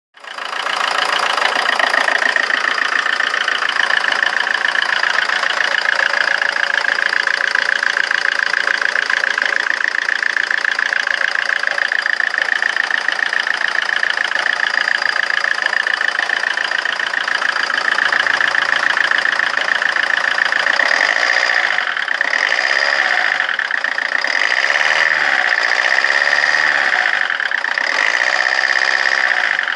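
Rover 25's 2.0-litre L-series four-cylinder turbodiesel idling roughly with a steady diesel knock. Over the later part the idle note wavers up and down.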